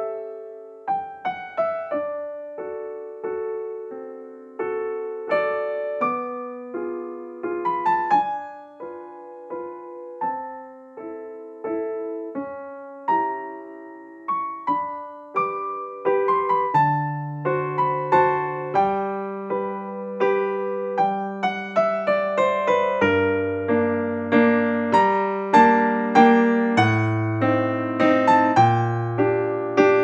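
Background piano music, single notes and chords struck and left to ring; deeper bass notes join about halfway through and the playing grows fuller near the end.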